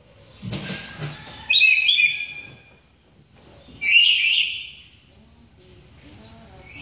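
A bird from Papua calling over and over, a strange, loud call of about a second and a half. Two full calls come a couple of seconds apart, with a shorter sound just before the first.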